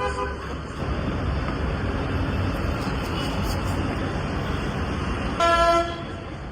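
Steady road-traffic noise, with a vehicle horn sounding once, briefly, about five and a half seconds in.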